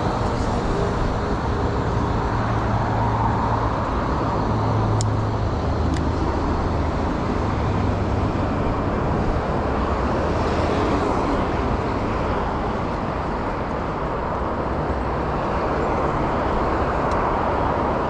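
Steady rush of road traffic from the road below, mixed with wind on the microphone of a moving bicycle, with a faint low engine hum in the mix.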